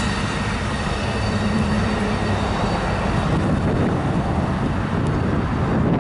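Amtrak Superliner passenger train's wheels rumbling over the rails as the last car passes and the train moves away, the upper hiss fading in the second half.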